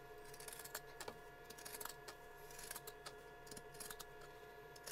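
Faint rustling and soft clicks of quilted fabric being handled and turned over, over a faint steady hum, with one sharper click at the very end.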